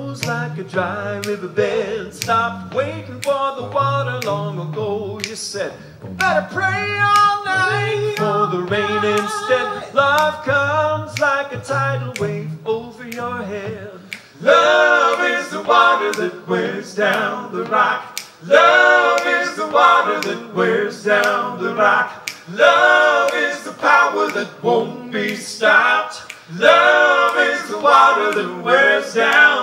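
Three men singing a cappella in close harmony, with finger snaps keeping a steady beat. A low bass voice carries a rhythmic line for the first half, then the harmony swells louder and fuller.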